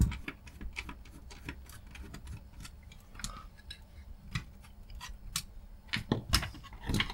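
Light, irregular clicks and taps of hands and tools working on a metal equipment case and its plastic clips during disassembly, with a few louder knocks near the end.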